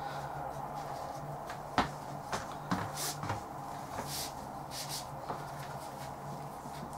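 Thick braided rope being handled and drawn through a knot by hand: scattered soft rubbing swishes and light clicks, with a few between two and five seconds in, over a steady low hum.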